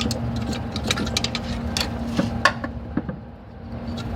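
Honda XRM 125's single-cylinder four-stroke engine running steadily, with irregular sharp clicks and taps over it. The sound drops quieter briefly about three seconds in.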